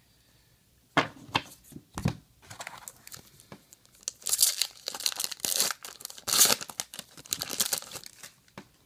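Foil trading card pack wrapper being torn open and crinkled, the sound lasting several seconds in the second half. A few sharp taps come before it, about a second in.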